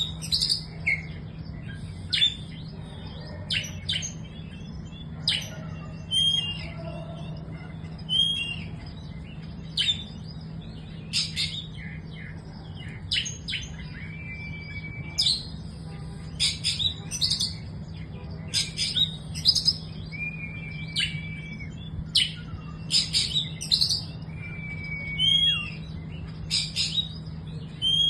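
Young oriental magpie-robin singing: sharp chirps and clicks with a few short held whistles, in bursts every second or two.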